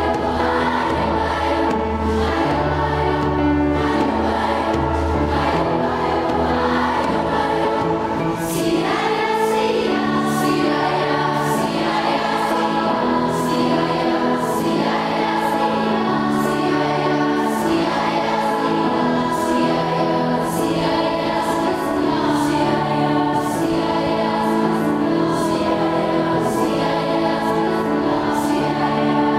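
Children's choir singing in parts. About eight seconds in, a steady percussion beat comes in under the voices, about one stroke every two-thirds of a second.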